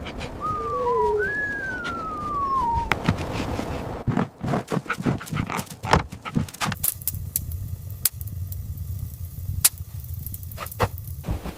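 A dog whining: two high falling whimpers in the first three seconds. After them comes a long run of irregular sharp clicks and crackles over a low steady rumble.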